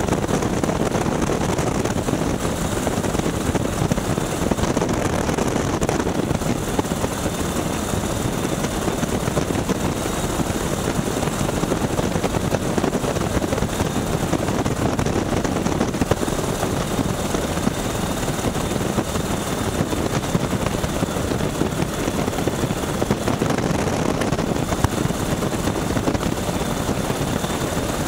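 Boeing Stearman biplane's radial engine and propeller running steadily in flight, heard from the open cockpit mixed with rushing wind.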